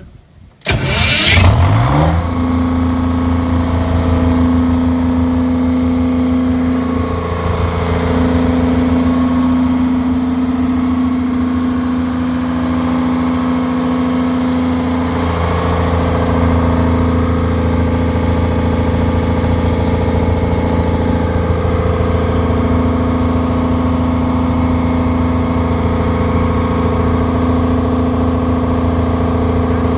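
Detroit Diesel engine of a 200 kW standby generator starting: it fires under a second in, speeds up for about a second, then runs steadily at its governed speed.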